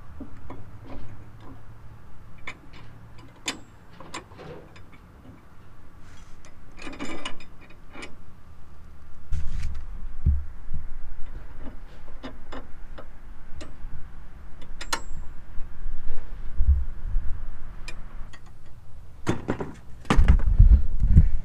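Scattered metallic clicks and clanks of hand tools and bolts as a stealth hitch receiver bracket is fitted and bolted up, with a short rattle about seven seconds in. Heavy low thumps come and go, loudest near the end.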